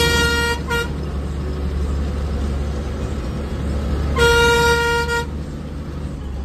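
Bus horn sounding over the low, steady drone of the bus engine, heard from inside the cab: a blast ending about half a second in, a short toot just after, and a blast of about a second about four seconds in.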